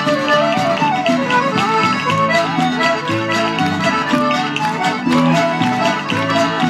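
Live Celtic folk band playing a lively traditional tune: fiddles carrying a fast melody over strummed acoustic guitar and upright bass. Thin, evenly spaced percussive taps run through it, fitting a step dancer's feet on a wooden platform.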